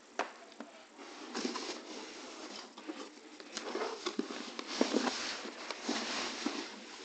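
Corrugated cardboard rustling and scraping in several bursts, with a few sharp knocks, as an inner box is worked loose and slid out of a shipping box.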